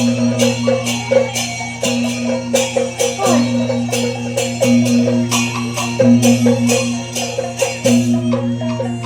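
Chinese opera instrumental accompaniment: sharp percussion strikes at about two a second over sustained low notes.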